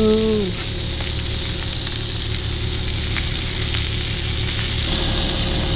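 Burger patties frying on a griddle over a gas camp stove: a steady sizzle, with a low hum underneath.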